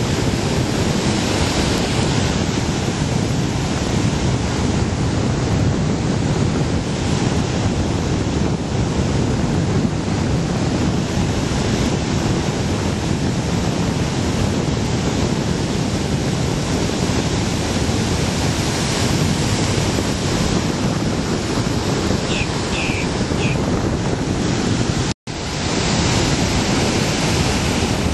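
Ocean surf from a hurricane swell, waves breaking and white water rushing in, mixed with steady wind buffeting the microphone. The sound cuts out for a split second near the end.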